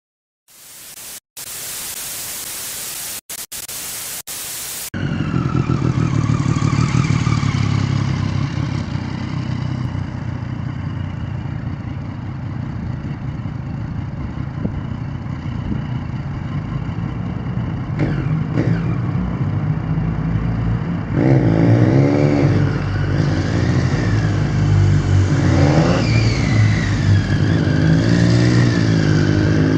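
A harsh burst of static, cut by short dropouts, for about the first five seconds. Then a motorcycle engine runs, fairly steady. About 21 seconds in, it starts revving up and down over and over as the bike throttles through a tight motogymkhana cone course.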